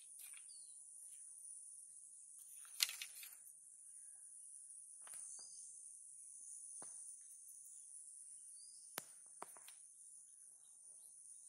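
Steady high-pitched chorus of insects, with a few sharp clicks, the loudest about three seconds in and two more near the nine-second mark.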